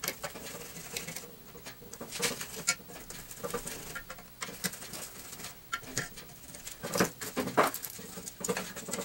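Phillips screwdriver backing screws out of a metal coolant drain tray, with irregular small metallic clicks and scrapes as the screws turn loose and the parts are handled, and a couple of louder knocks about seven seconds in.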